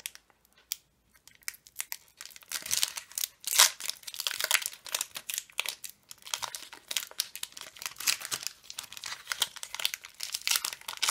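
Foil wrapper of a Pokémon TCG booster pack crinkling as it is handled and torn open. After a quiet couple of seconds with a few faint clicks, a dense run of crackling rustle sets in, with one sharp crack about three and a half seconds in.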